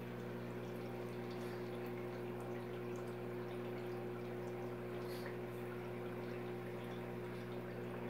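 Aquarium filtration running: a steady low hum with water trickling and splashing into the tank.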